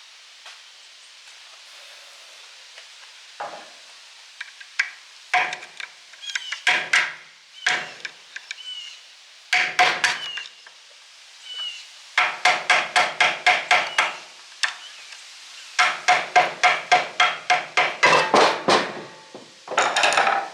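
Hammer blows on the steel end cover of an old electric motor, driving the cover off. Scattered single ringing strikes give way to two quick runs of about five blows a second.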